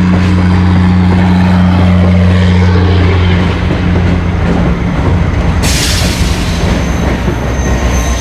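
Diesel locomotive engine running as the locomotive passes directly underneath, a steady low drone. About six seconds in a loud rushing noise joins it, and a thin high squeal sounds near the end.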